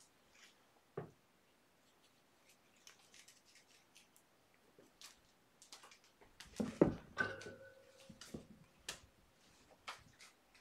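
Cats pouncing and scrabbling on carpet after a wand toy: scattered light taps and rustles, with a cluster of thumps about seven seconds in and a brief squeak just after.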